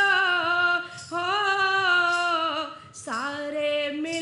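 A woman singing a Hindi bhajan in long held notes, over three phrases with short breaks about one and three seconds in.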